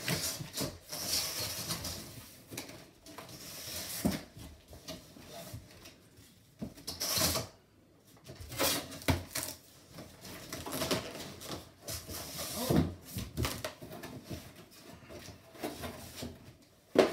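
Cardboard packaging and plastic wrapping being handled while a stroller box is unpacked: rustling and scraping of cardboard flaps and inserts, with scattered knocks, the sharpest near the end.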